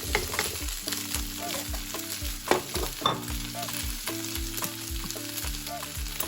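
Chicken gizzards frying in hot oil in a pan, a steady sizzle, with a couple of sharp knocks about halfway through. Afrobeat music with a steady beat plays underneath.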